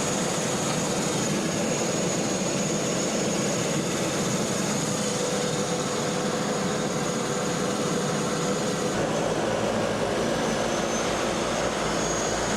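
Float plane's propeller engine running steadily, heard from inside the cabin. About nine seconds in, the sound takes on a deeper rumble.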